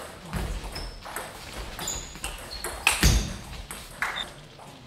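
Table tennis rally: the celluloid ball clicking sharply off bats and table in quick succession, with short high squeaks of shoes on the hall floor and a loud thump about three seconds in.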